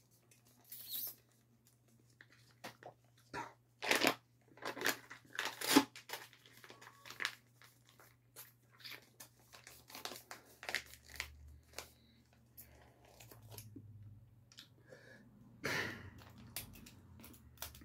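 Eating sounds: konjac water jelly sucked from a squeezed plastic spout pouch and chewed, with the pouch crinkling. A string of short, irregular smacks and crinkles, loudest a few seconds in.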